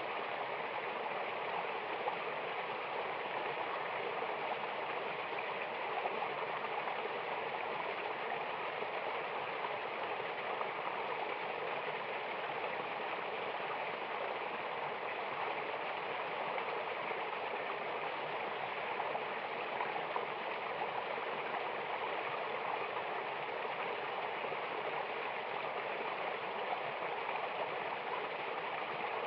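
Waterfall and mountain river water rushing steadily, an even, unbroken hiss of flowing water.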